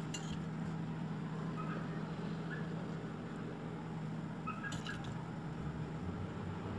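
Quiet room background: a steady low hum, with two faint light clicks, one right at the start and one a little under five seconds in.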